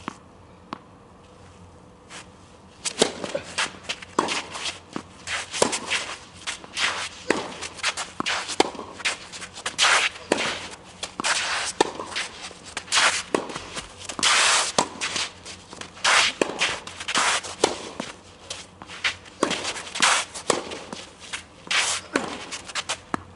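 Tennis rally: sharp pops of racquets striking the ball and the ball bouncing, mixed with quick footsteps and shoe scuffs on the court. It starts about three seconds in, after a few faint isolated knocks.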